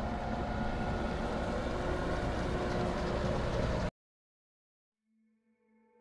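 Case IH Maxxum 145 tractor and Kuhn VB 3160 round baler running steadily, an engine hum over a low rumble. The sound cuts off abruptly a little before 4 seconds in, and after a silence soft piano music fades in near the end.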